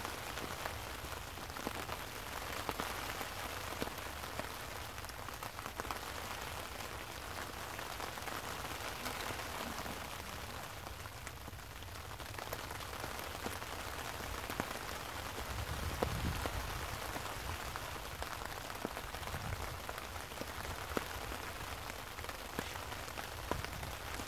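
Steady rain falling, with many single drops ticking close by, and a brief low rumble about sixteen seconds in.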